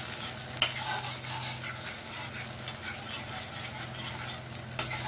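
A spatula stirring fried potatoes in spiced curry masala with beaten curd in a nonstick kadai, with a soft steady sizzle underneath. The spatula knocks sharply against the pan about half a second in and again near the end.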